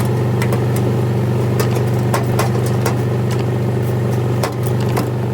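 Ratchet clicking in short irregular runs while backing out the washer's bottom-panel screws, over a steady low machine hum.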